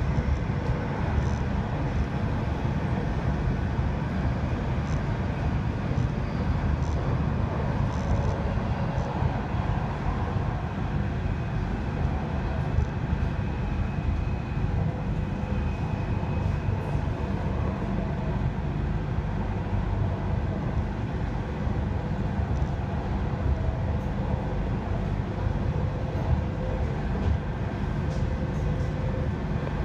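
Electric commuter train running between stations, heard from inside the carriage: a steady low rumble that does not let up.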